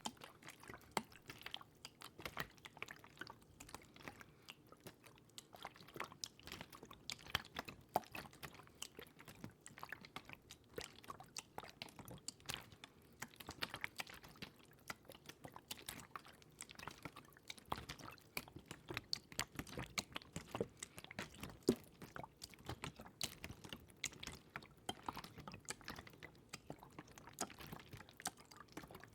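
Close-miked water ASMR: a dense, irregular run of small wet clicks and crackles, with faint trickling.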